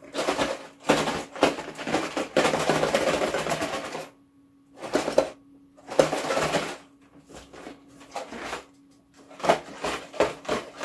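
Handling noise from a LEGO Technic set box being picked up and held: bursts of rustling and knocking, the longest in the first four seconds, with more about five, six and nine and a half seconds in. A faint steady hum sounds between the bursts.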